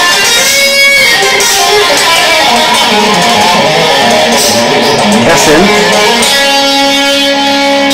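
Guitar playing fast lead lines in shred style, with many quick notes, then settling into a few held, ringing notes near the end.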